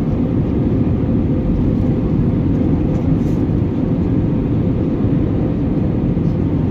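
Steady cabin noise of an Airbus A320neo airliner in flight: a constant deep rush of engine and airflow with a faint steady hum over it.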